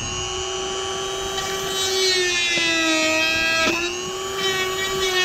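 Dremel rotary tool running at high speed with a steady high whine, grinding out a drilled hole to widen it. The pitch sags whenever the bit bears down on the material, around the middle and again near the end, with a short click about two thirds of the way in.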